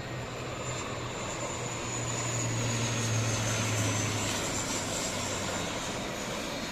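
Dash 8 turboprop airliner flying past on its landing approach: a steady engine drone with a high whine that slowly falls in pitch, growing louder to a peak about four seconds in and then easing.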